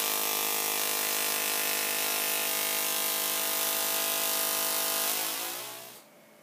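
Small Tesla coil sparking from a point on its toroid: a steady buzz with a fixed pitch and many overtones, which fades out and stops about five to six seconds in.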